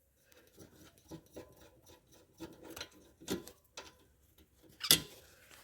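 Scattered light clicks and knocks of metal tools and parts being handled, with one sharper, louder click about five seconds in.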